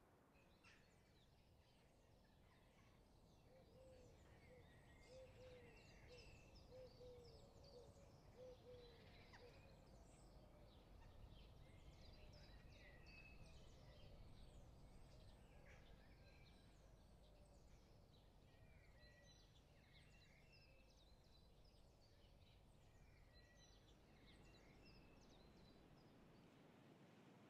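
Faint outdoor birdsong: many small birds chirping and trilling, with a run of short repeated lower calls for several seconds early on, over a steady low rumble.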